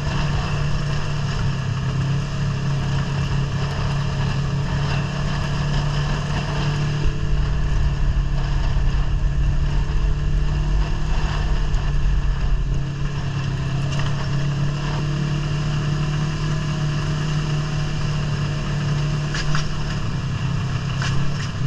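Multi-seat ATV's engine running steadily under way, with the rush of riding over rough ground. A heavier low rumble comes in for several seconds midway.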